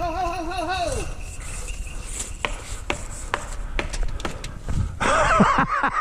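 A person's drawn-out, wavering cry trails off about a second in, followed by scattered sharp knocks and crackles of scuffling in brush and sticks; voices break in again near the end.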